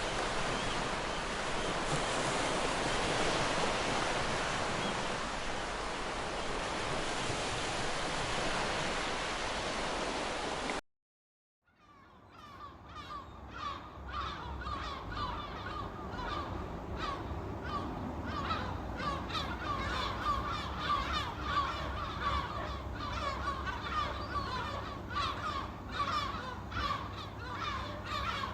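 Steady rushing water for about the first eleven seconds, cutting off abruptly into a brief silence. Then a flock of birds calls densely, many short calls in quick succession, over a low steady rumble.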